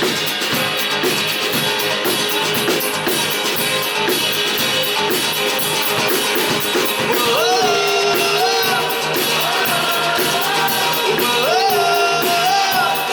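Live rock band playing an instrumental passage: drum kit, bass and guitars keep a steady beat. About halfway through, a held melodic line with slides between notes comes in over the band.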